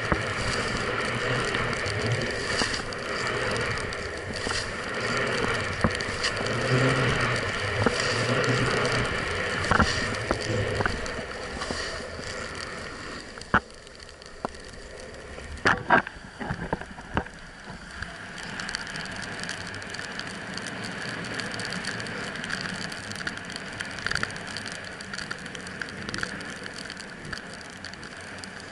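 Snowboard sliding and carving over snow: a steady scraping hiss, louder in the first half and softer later, with a few sharp clicks a little past the middle.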